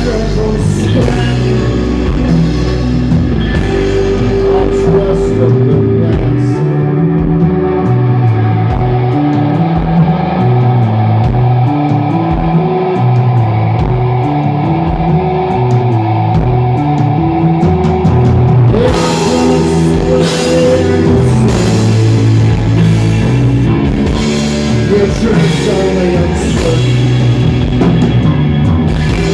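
Live rock band playing an instrumental stretch: electric guitars, bass and drum kit, amplified on stage. The cymbals drop out from about five seconds in, leaving sustained guitar and bass notes, and the full band comes back in about two-thirds of the way through.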